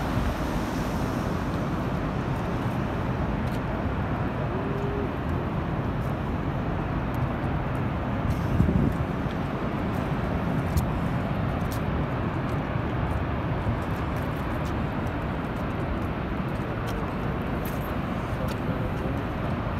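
Steady rush of water pouring over Niagara Falls, a deep continuous noise with one brief louder swell about nine seconds in.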